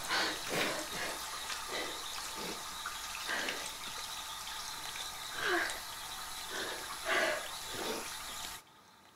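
Water running from a tap into a bathroom basin, with irregular splashes as water is scooped in cupped hands and splashed onto the face. The sound cuts off abruptly near the end.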